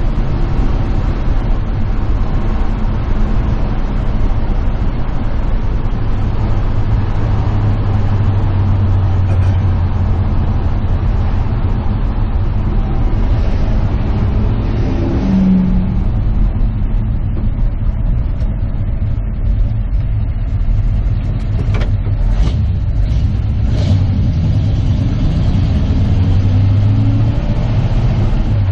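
Engine and road noise inside the cab of an old truck being driven: a steady low drone that swells and eases with the throttle. A few sharp clicks come about two-thirds of the way through.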